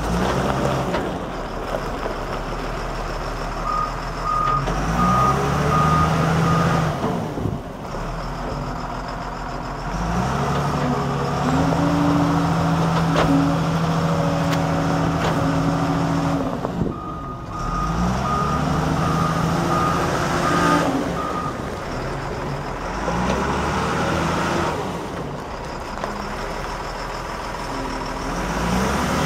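Caterpillar 950F Series II wheel loader's diesel engine revving up and falling back again and again as the machine is driven and manoeuvred. Its reversing alarm beeps steadily during two stretches of a few seconds, once early and once past the middle.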